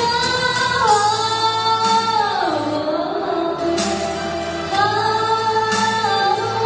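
A woman singing a Vietnamese song through a karaoke microphone over a backing track, holding long notes that slide down in pitch.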